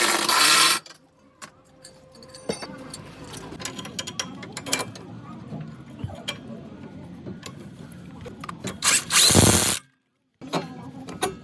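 Car repair work on the steering rack and suspension: two short, loud bursts from a power tool, one at the start and one about nine seconds in, with scattered clicks and clanks of hand tools and metal parts between them. The sound cuts off abruptly near the end.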